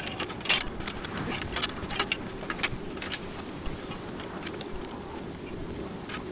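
New SRAM 8-speed bicycle chain being threaded by hand around the rear cassette and through the pulleys of a new SRAM X3 rear derailleur. The metal links make irregular light clicks and clinks, thicker in the first half, over a steady background noise.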